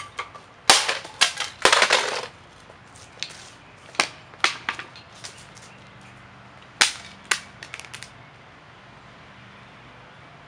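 A wooden baseball bat smashing a portable boombox: a quick string of sharp cracks and knocks in the first two seconds, then single scattered knocks until about eight seconds in.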